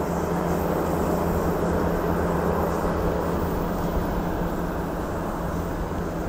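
Diesel multiple-unit railcar train running away along the track, its engine giving a steady hum with a constant low note over the rumble of wheels on rail, easing a little toward the end.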